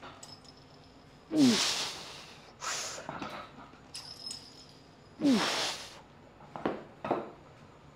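A powerlifter's forced grunts and breaths during heavy back squat reps: two loud grunts, each falling in pitch, about four seconds apart, with short sharp breaths in between.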